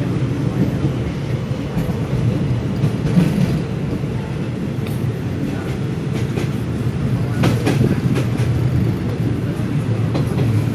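Passenger train coach running along the track, heard from inside: a steady low rumble of wheels on rails, with a short run of sharp clacks about seven seconds in.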